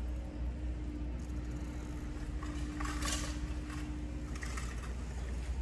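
A city bike's tyres rolling through a concrete skate bowl: a steady hum for about three seconds, with two short scuffing hisses, over a low rumble.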